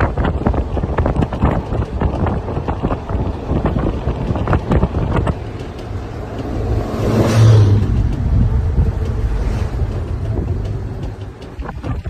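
Wind rushing and buffeting against the microphone at the open window of a moving bus, over the bus's low road and engine noise. The rush swells louder for a moment about seven seconds in.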